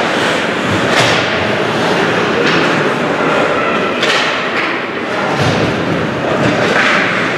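Ice hockey play: skates scraping the ice and sticks clacking under a steady rink din, with several sharp knocks and thuds of puck and bodies against the boards and glass.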